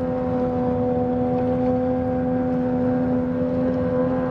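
Steady drone of a passing U.S. Coast Guard buoy tender's engines, a constant hum over a low rumble.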